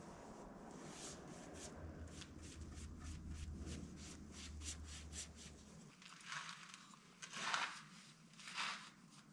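Bristle brush stroking finish onto bare wood: a quick run of short strokes, about three a second, then three longer, louder swishes near the end. A low steady hum underneath stops about six seconds in.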